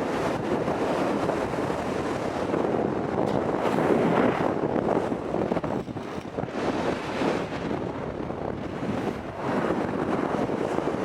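Strong wind buffeting the camera microphone in rising and falling gusts.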